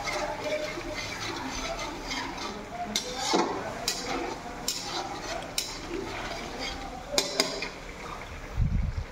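A metal spoon stirring and scraping through gravy in a kadai, with about six sharp clinks of the spoon against the pan and a low thump near the end.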